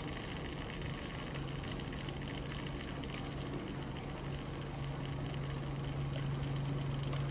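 SilverCrest SZM 500 B2 cotton candy machine running: a steady electric motor hum from the spinning head, with a faint hiss above it. The hum grows a little stronger about a second in and again around the middle.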